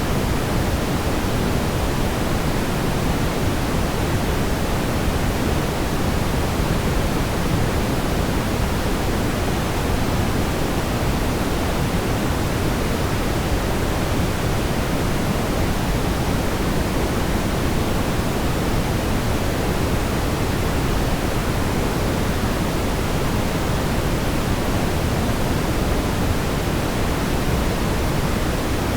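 Steady, smoothed brown noise: an even, deep rush with no tones or events, strongest in the bass and thinning toward the treble.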